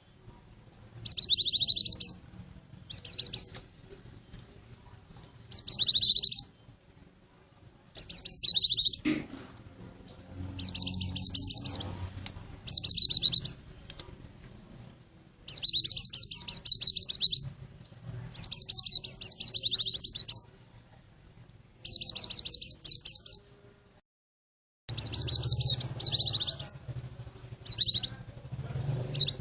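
White-eye (pleci) song: high, rapid trilled chattering phrases, each a second or so long, repeated every second or two. There is a brief cut to complete silence about three-quarters of the way through.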